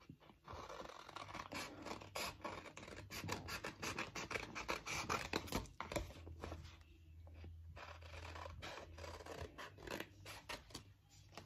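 Scissors snipping through a paper shipping-label sheet: many short cuts in a row with paper rustling between them.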